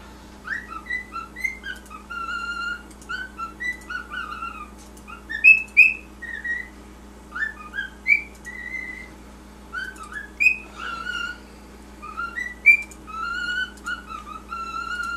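Cockatiel whistling: a continual run of short, chirpy whistled notes that bend up and down, over a steady low hum.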